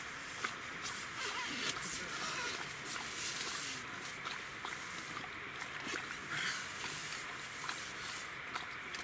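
Rain pattering on the tent's fabric: a steady hiss dotted with many small, irregular drop ticks.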